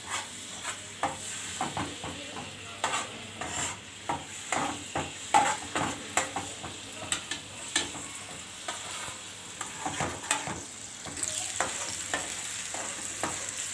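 Garlic-ginger and green chilli paste sizzling as it fries in hot oil in a metal karahi, with a perforated metal skimmer scraping and knocking against the pan as it is stirred. The sizzle grows louder about eleven seconds in.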